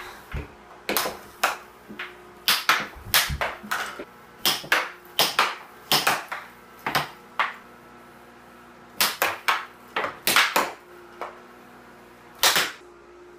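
Air hockey mallets hitting a plastic puck that clacks off the table's rails: quick irregular clacks in rallies, with pauses a little past halfway and again near the end. Under them runs the steady hum of the air hockey table's blower fan.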